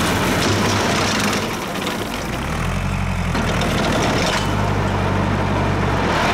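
Farm tractor engine running steadily under load while driving a bush hog rotary mower through grass. The level dips slightly for a moment about a second and a half in.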